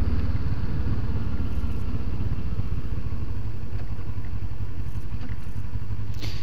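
Motorcycle engine running steadily while riding, mixed with wind and road noise, picked up by a camera mounted on the bike.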